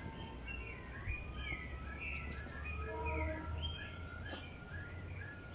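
Small birds chirping: a quick run of short falling chirps with a few higher whistles, over a steady low rumble.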